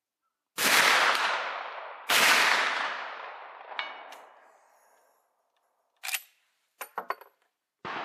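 Two shots from a Winchester Model 1894 lever-action rifle in .38-55 firing black powder, about a second and a half apart, each echoing away for a second or more. A short ringing knock follows a couple of seconds later, then a few quick clicks of the lever action being worked, and another sharp report near the end.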